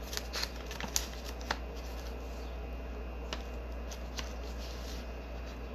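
Brown paper takeout bag being opened by hand: the stiff paper crinkles and crackles, with a few sharp crackles in the first second and a half and a couple of lighter ones later.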